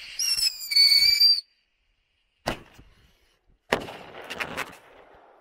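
Small whistling firework shrieking loudly for about a second, with a step in pitch partway through, then a sharp bang and, a little over a second later, a second bang followed by a short burst of crackling pops.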